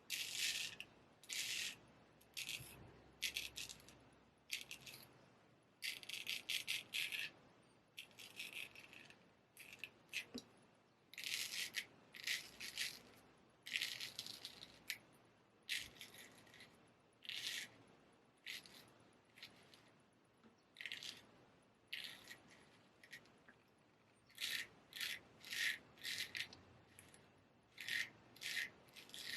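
Olympia straight razor shaving through stubble: a run of short, crackling scraping strokes, roughly one a second, with brief pauses between groups.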